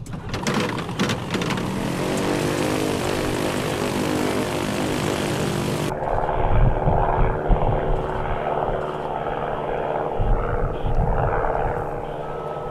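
Terrafugia Transition flying car's piston engine and rear pusher propeller running up, the pitch rising over the first few seconds. After a sudden change about six seconds in, the same aircraft is heard from a distance at takeoff power during its takeoff run and lift-off, with a steady engine note.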